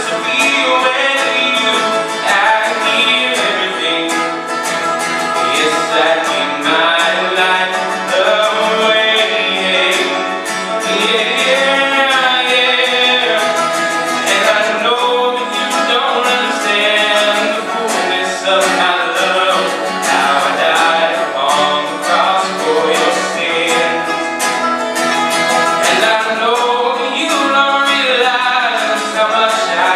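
Live bluegrass-style song: a man singing lead into a microphone, backed by an acoustic-electric guitar and a picked five-string banjo.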